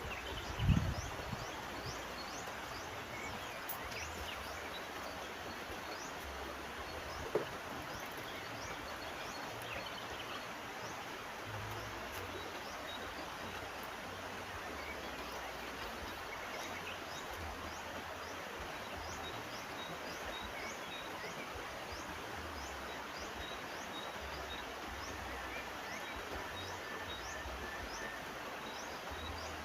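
Steady rushing of a flowing river, with a short high chirp repeating about once a second above it and two brief low knocks, one about a second in and one about seven seconds in.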